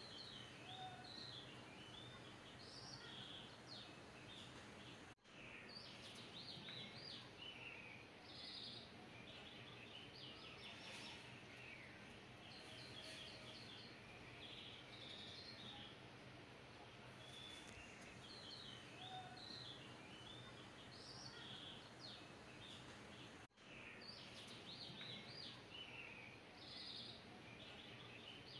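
Faint birdsong ambience: clusters of small birds chirping and twittering over a steady low hiss, with a brief cut-out about five seconds in and another near the end.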